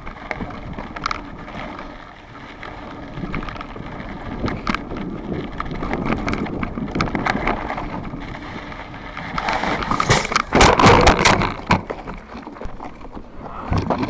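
Mountain bike front tire rolling fast over loose gravel, rumbling with scattered stone clicks and rattles. About ten seconds in comes a burst of loud clattering impacts as the bike crashes after the front tire burps. A last hard knock comes near the end. The uploader blames wheels and tires that were not set up correctly.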